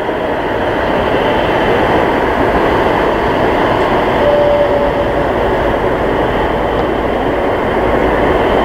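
Airbus A380-861's four Engine Alliance GP7200 turbofans at taxi power: a steady jet rumble and hiss, with a faint brief whine about four seconds in.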